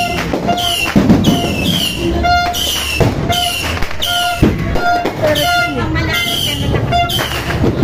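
Street fireworks: a run of shrill whistles, each falling in pitch, repeating about twice a second, with several sharp firecracker bangs in among them.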